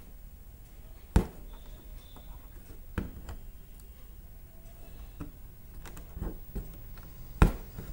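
Hand bead embroidery: a fine needle is worked through the fabric and beads are stitched down, giving a few sharp clicks about a second in, at about three seconds and loudest near the end, with fainter ticks between, over a faint low hum.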